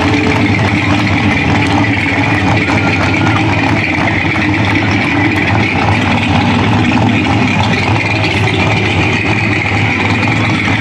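A vehicle engine idling at a steady pitch with no revving, a loud even rumble.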